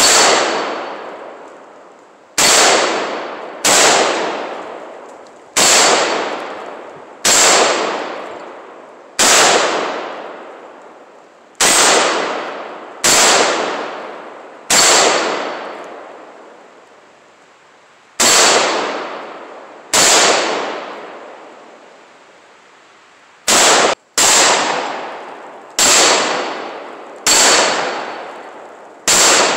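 Riley Defense RAK47C AK-47 rifle firing Tula 7.62×39 steel-cased rounds as sixteen single semi-automatic shots, one to three seconds apart, two of them in quick succession near the end. Each shot fades out over a second or two with the clang of a hanging steel plate target being hit. Every round fires and cycles without a stoppage.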